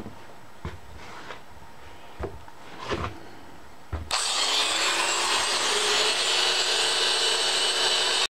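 A few handling clicks and knocks, then about four seconds in an old aluminum-bodied electric die grinder switches on, spins up and runs steadily, its bit against the end of a steel gear shaft, roughening the metal so it will bond.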